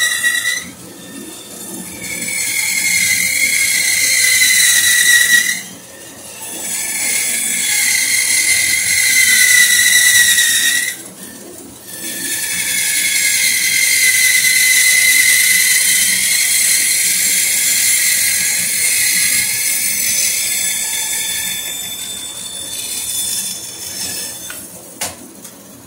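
Dunlap bandsaw with a new wide blade cutting through a wooden plank: a steady high-pitched whine over a hiss of saw noise, broken by three short pauses in the cut and fading away near the end, with a single click as it finishes.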